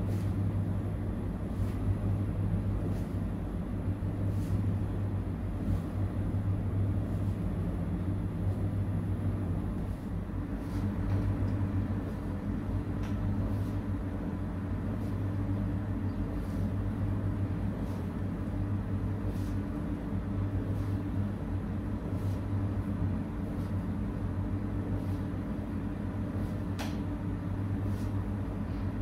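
A steady low hum that runs unchanged, with faint short ticks about once a second.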